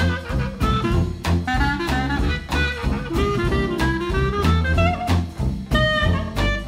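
Upbeat swing-style jazz background music: a horn melody over bass, with a steady drum beat.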